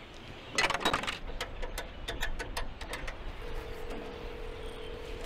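Coin-operated payphone being used: a jingle of coins and a quick run of clicks, then a steady single-pitch tone from the phone, starting about three and a half seconds in.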